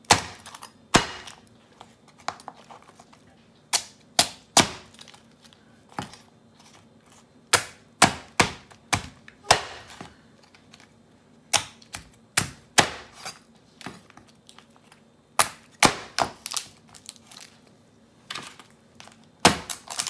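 A kitchen knife cutting through cooked king crab leg shells and knocking down on a wooden cutting board: irregular sharp cracks and knocks, some in quick pairs or short clusters, with pauses between.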